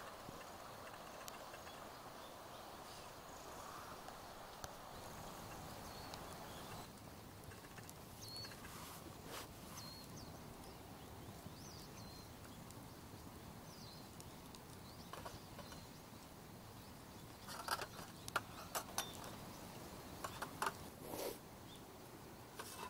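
Faint outdoor night ambience: a soft hiss for the first several seconds, a few faint high chirps, then a cluster of sharp clicks and snaps near the end.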